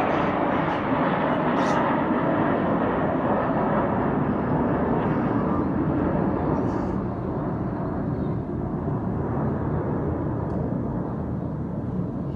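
Jet engine noise from a formation of military jets flying past, a steady rushing sound that slowly fades as they move away.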